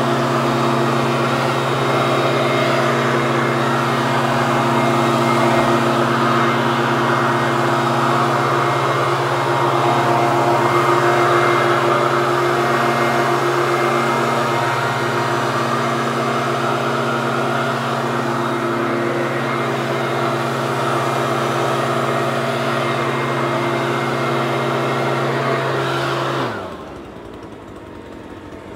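Leaf blower's small engine running steadily at a constant pitch, then winding down sharply, falling in pitch and loudness, near the end.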